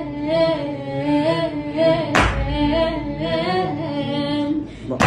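A boy's voice singing an unaccompanied devotional chant for Husayn, with a sharp hand strike twice, about three seconds apart, keeping the beat.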